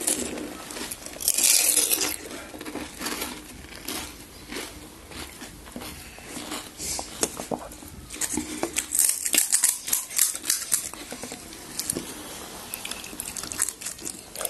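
Irregular crackling and crinkling with scattered sharp clicks and light clinks, in short clusters of bursts rather than a steady sound.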